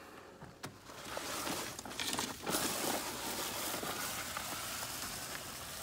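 Push broadcast spreader being wheeled across a wet lawn while sowing grass seed: a steady, grainy hiss that starts about a second in.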